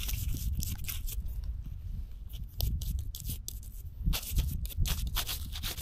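Toothbrush bristles scrubbing dirt off a freshly dug button, in several bouts of quick, scratchy strokes.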